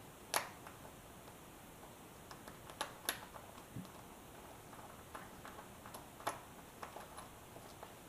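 Faint, scattered small metallic clicks and ticks of hemostat forceps and a pick handling a small brass lock plug, the sharpest click about half a second in.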